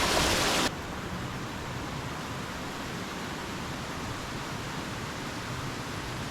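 Water of a small woodland waterfall cascading over rocks: a steady rushing hiss that cuts abruptly, under a second in, to a quieter, duller rush that then holds steady.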